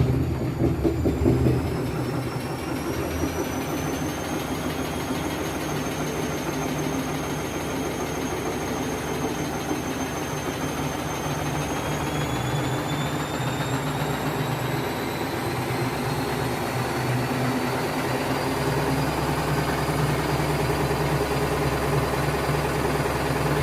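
Washing machine with burst shock absorbers running on spin, knocking hard for the first second or so and then running with a steady rumble and a whine that rises in pitch as the drum speeds up. The drum's swing is no longer damped, which makes the machine shake and shift.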